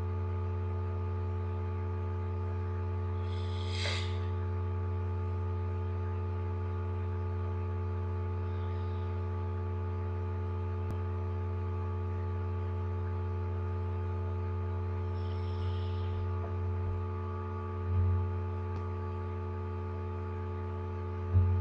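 Steady electrical hum on the recording microphone, a low drone with several steady tones stacked above it. A short breathy noise comes about 4 seconds in and another about 16 seconds in.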